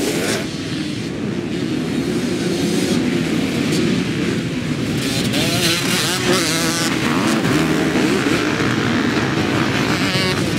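A pack of enduro motorcycles accelerating off the race start together, many engines running at once as one dense din. Individual bikes can be heard revving up and down as they pass close, about halfway through and again near the end.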